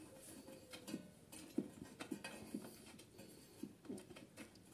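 Faint, scattered clicks and light taps of hands working on a Briggs & Stratton lawnmower engine as the spark plug is refitted.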